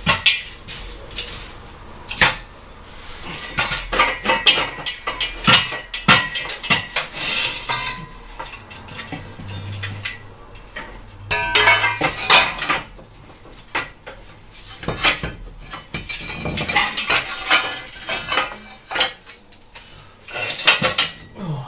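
Steel Acrow prop being put up and adjusted: steel tube and fittings clinking and clanking in repeated clusters of small metal knocks.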